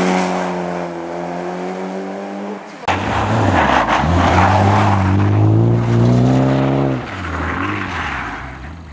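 Mitsubishi Lancer Evolution rally car's turbocharged four-cylinder engine running at high revs as the car is driven hard. The engine note changes abruptly about three seconds in and again about seven seconds in. In between the pitch rises as the car accelerates, and near the end the sound fades as the car pulls away.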